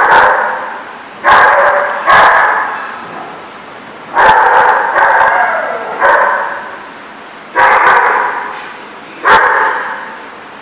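A puppy barking in high, sharp yaps, about eight of them at uneven intervals, each trailing off in a short echo.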